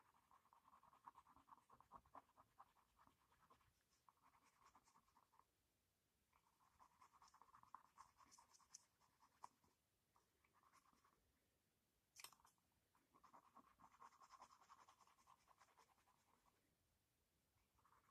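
Colored pencil scratching on drawing paper in shading strokes: faint runs of a few seconds each, with short pauses between them and one sharp tick about twelve seconds in.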